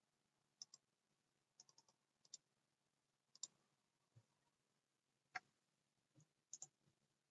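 Faint clicks of a computer mouse, single and double, scattered unevenly about every half second to a second.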